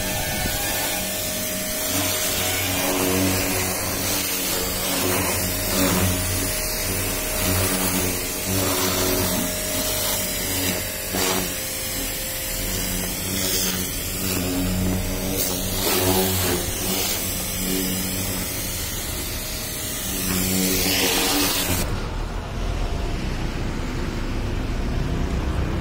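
Pressure washer running during a car wash: a steady motor hum under the hiss of the water jet spraying onto the car. The hiss drops away near the end while the hum carries on.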